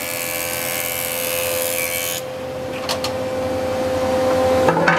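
Combination woodworking machine's thickness planer cutting a wooden board, a steady motor hum under a loud hiss of planing. The hiss cuts off about two seconds in as the board clears the cutterhead, and the machine runs on idle with a couple of sharp knocks near the middle and end.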